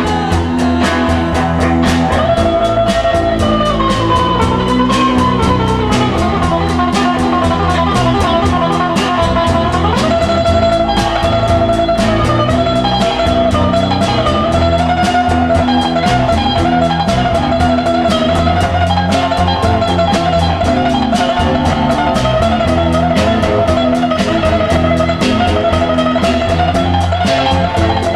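Instrumental break of a 1960s garage folk-psych rock song: electric guitar lead with bending notes over bass and a steady drum-kit beat.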